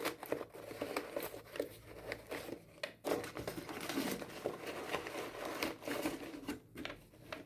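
Packaging crinkling and rustling as it is handled, a run of irregular crackles.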